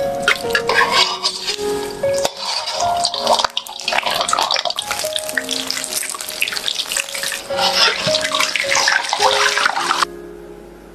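Whole chicken deep-frying in a wok of hot oil: a loud, dense crackling sizzle that stops abruptly about ten seconds in. Background music plays along with it.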